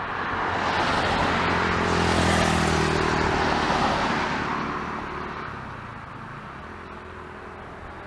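A car passing by on the road: tyre and engine noise swelling to its loudest about two to four seconds in, then fading away.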